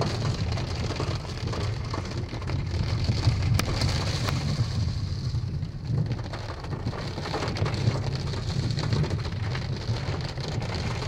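Heavy rain pattering on a car's roof and windows, heard from inside the cabin, with a steady low rumble underneath.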